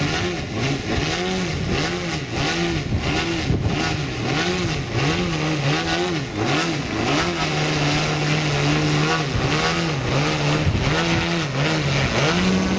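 Large radio-controlled aerobatic plane hovering nose-up on its propeller, the engine and prop rising and falling in pitch about once a second as the throttle is worked to hold the hover. The engine note holds steady for a couple of seconds midway.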